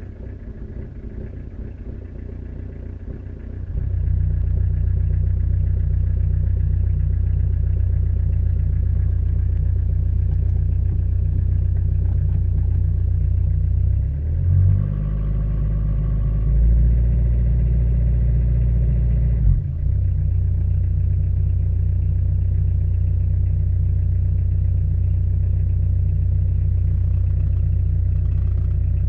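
Citroen BX engine running just after a cold start: a steady low idle that gets louder about four seconds in, with its note shifting for several seconds about halfway through before settling back to the same steady idle.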